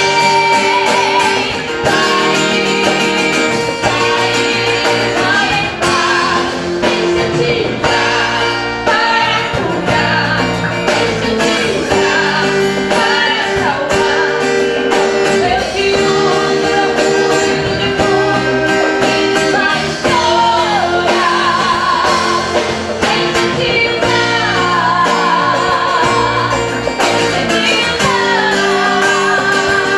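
A Christian worship ensemble performing a song: voices singing with guitar accompaniment.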